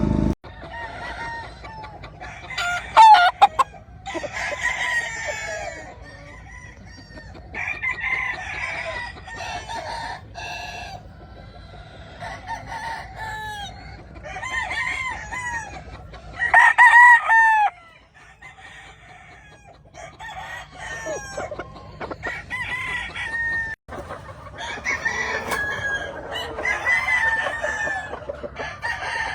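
Several gamefowl roosters crowing one after another, the loudest crows about three seconds in and again around seventeen seconds in.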